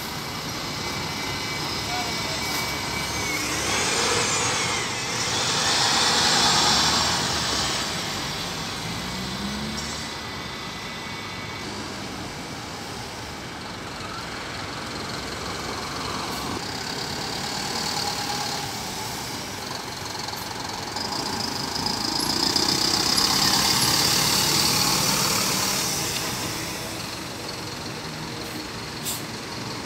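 City buses driving out of a bus station exit and passing close by, their engines running over steady street traffic. They are loudest about four to seven seconds in and again about 22 to 26 seconds in, and a whine rises and falls about four seconds in.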